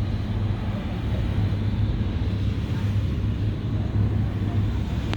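Steady low engine drone of a river boat under way, with an even rushing noise over it.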